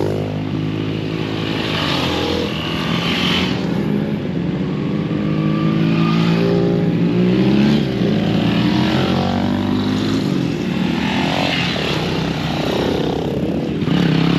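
Several motorcycles pulling away and riding past one after another, their engines revving, pitch rising and falling as each goes by, over the steady note of an idling engine.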